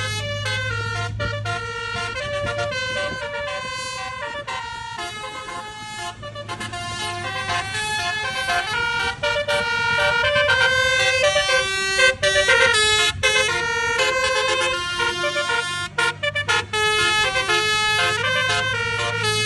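Bus telolet (basuri) multi-trumpet air horn playing a tune, stepping quickly from note to note in a siren-like melody. A low steady hum sits underneath for the first second or so.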